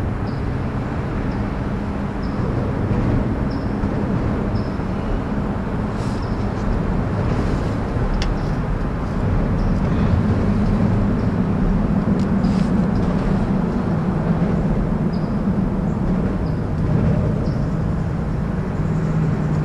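Steady low rumble of road traffic crossing the highway bridge overhead, swelling about halfway through.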